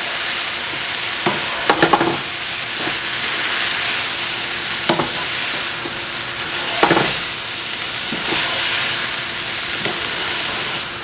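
Vegetables sizzling in a hot stir-fry pan on a gas burner, a steady hiss with steam coming off. A spatula stirs and tosses them, knocking against the pan a few times.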